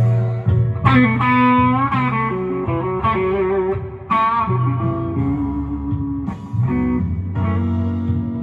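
Slow blues played on electric guitar: a lead fill of sustained, bent notes over a steady bass line.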